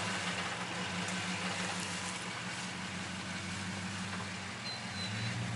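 Dodge Ram 1500 pickup's engine running steadily at low revs as the truck crawls slowly over rough off-road ground.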